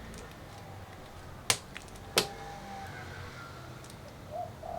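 Two sharp clicks about two-thirds of a second apart, as of something being handled.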